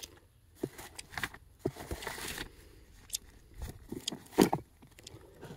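Books being handled and searched: paper rustling and scattered small knocks and clicks, with one louder knock about four and a half seconds in.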